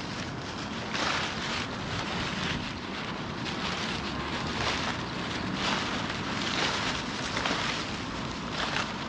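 Walking footsteps with a rustling crunch, about one step a second.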